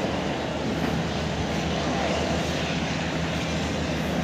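Helicopter flying overhead: the steady drone of its engine with the low, regular beat of the rotor blades.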